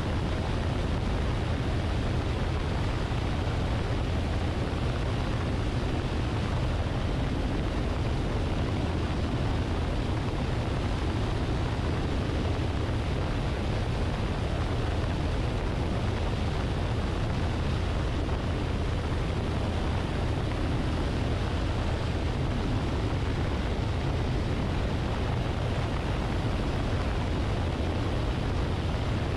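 Luscombe light airplane in level flight, heard from a wing-mounted camera: a steady low drone of engine and propeller under the rush of air over the camera, unchanging throughout.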